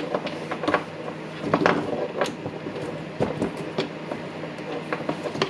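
Irregular light clicks and knocks of a cordless impact driver's housing and switch parts being handled and fitted by hand.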